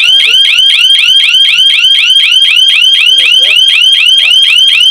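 Bushplus burglar alarm siren sounding loudly in rapid rising chirps, about five a second. It has been set off by the motion sensor while the system is armed.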